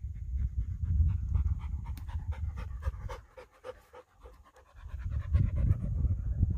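A dog panting quickly and evenly after running, over a low rumble that fades out for about a second partway through.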